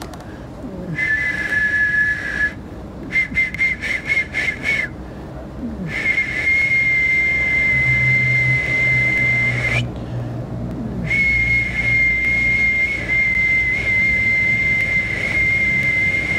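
Two steady high whistling tones sounding together, blown on a small hand-held mouth instrument. They come in four long blasts with short gaps; the second blast is broken into quick short toots, and the last is the longest.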